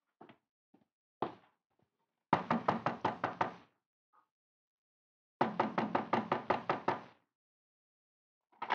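Rapid knocking on a door, done as a radio-drama sound effect: two quick runs of about ten knocks each, a couple of seconds apart, after a few faint taps.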